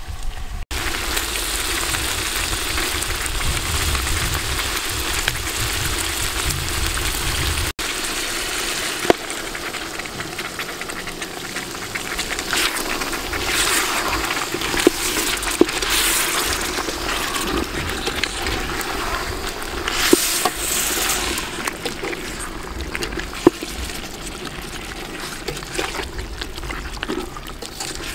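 Chicken and shredded palm fruit cooking in a large aluminium pot over a wood fire, a steady sizzling, bubbling hiss, stirred with a metal ladle that clicks now and then against the pot.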